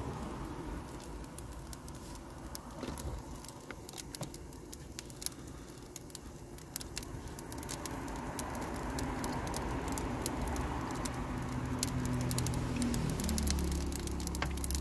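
Food frying in pans on camping gas stoves, sizzling with sharp crackles that grow busier after a few seconds, over a low hum that gets heavier near the end.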